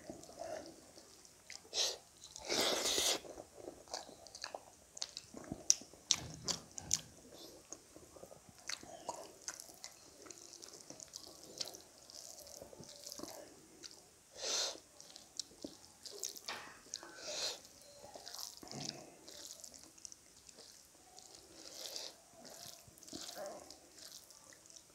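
Rice and wet curry squelching as fingers knead and mix them on a metal plate, with many light clicks of fingertips against the plate and a louder burst about three seconds in.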